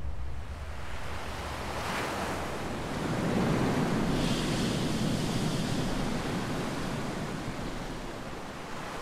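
Ocean surf washing onto a beach: a continuous rush of breaking waves that swells about two seconds in and again a few seconds later.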